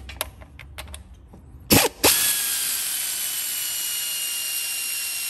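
Pneumatic air ratchet undoing a 10 mm exhaust manifold nut: a short blip of the trigger, then the tool runs steadily with a high, airy whine that slowly sinks in pitch. A few light clicks of the socket going onto the nut come first.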